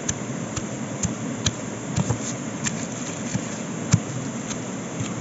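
Stone pestle pounding dried red chillies, garlic and salt in a stone mortar: sharp knocks about twice a second, one strike about four seconds in louder than the rest, over a steady hiss.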